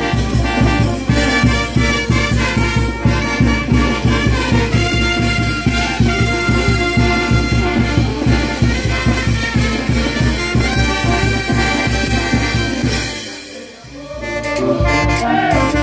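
Brass band playing: trumpets and trombones over a steady drum beat. The music dips briefly near the end, then the horns come back in.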